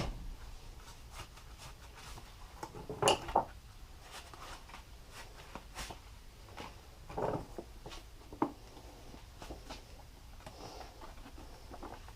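A few scattered light knocks and clicks of hand tools and parts being handled and set down on a workbench, two close together about 3 seconds in and others a little past halfway, over quiet room tone.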